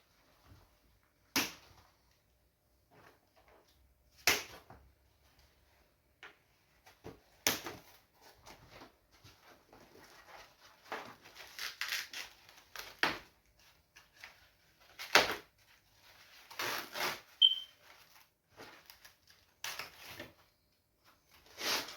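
Handling noises in a small room: scattered sharp knocks and clatters, about eight of them at irregular intervals, with stretches of rustling in between and one brief squeak.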